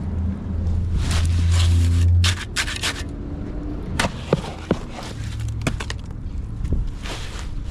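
Steel shovel scraping and chopping into gravel and concrete mix, in short irregular strokes. A loud low rumble runs under the first two seconds and cuts off suddenly.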